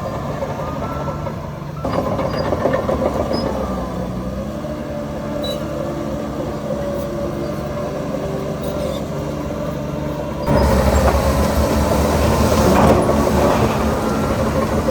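Diesel engines of heavy earthmoving machinery, a crawler bulldozer working with dump trucks, running steadily. The noise steps up about two seconds in and gets clearly louder about ten and a half seconds in.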